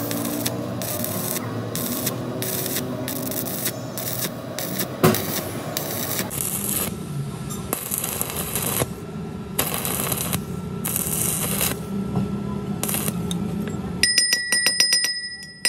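Stick-welding arc crackling and sizzling as weld is laid onto the broken teeth of a steel gear to build them back up, with the hiss swelling and dropping irregularly. Near the end it gives way to a run of sharp clicks over a high, steady ringing.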